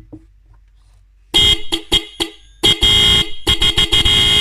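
Pair of Hella Classic disc horns sounding together, loud, in a string of blasts starting about a second and a half in: a few short stuttering toots, then longer blasts broken by brief cut-outs.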